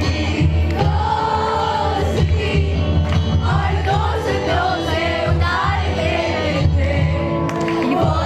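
A group of young voices singing together into microphones, accompanied by acoustic guitars, amplified through a hall PA.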